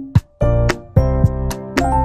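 Background music with a steady beat: keyboard melody over a bass line and regular percussion hits.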